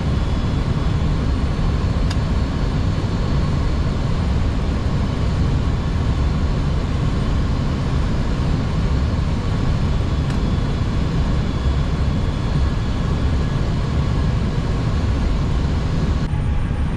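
Steady flight-deck noise of an Airbus A320 in flight: a constant low rumble of airflow and air conditioning, with a couple of faint clicks.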